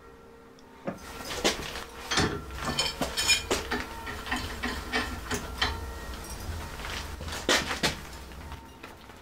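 Irregular metal-on-metal clanks and clinks of steel tools against a bench vise as a hot damascus bar is clamped and an adjustable wrench is set on it for twisting. The knocks start about a second in, with the loudest near the start and again near the end.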